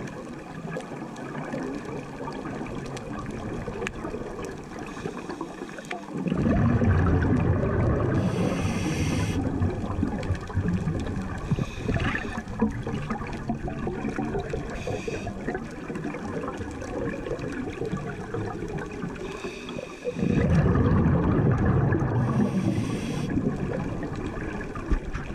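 Underwater sound of a scuba diver breathing through a regulator: two long, bubbly exhalations beginning about six and twenty seconds in, each with a brief hiss, over a steady underwater rush.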